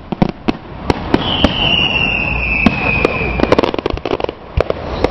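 Aerial fireworks going off in a rapid, irregular series of sharp bangs and crackles. About a second in, a high whistle sounds for about two seconds, sliding slightly down in pitch.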